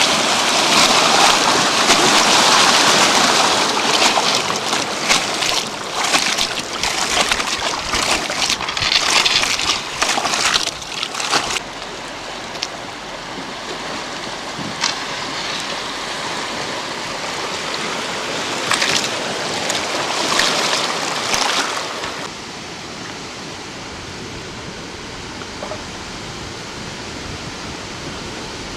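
Water rushing and splashing. The noise is loud and continuous, full of short splashy surges, and it drops abruptly to a quieter, steadier rush about eleven seconds in and again about twenty-two seconds in.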